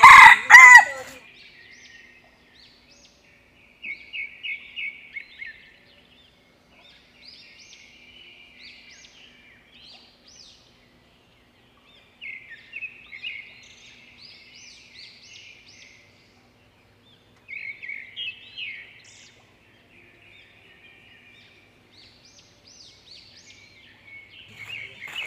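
A rooster's crow, loud, finishing about a second in. After it, short bursts of rapid high-pitched peeping recur every few seconds from village chickens, most likely chicks.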